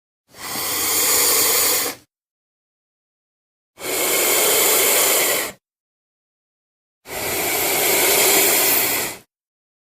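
Monster sound effects for a giant fictional reptile: three loud, unpitched, noisy calls, each about two seconds long, separated by dead silence.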